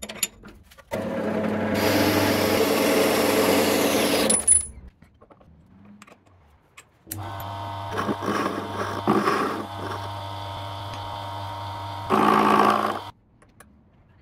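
A small metal-cutting bandsaw running and cutting through 8 mm key steel for about three seconds. After a short pause, a very small lathe's electric motor runs while a tool cuts the key steel; it gets louder for about a second near the end, then stops.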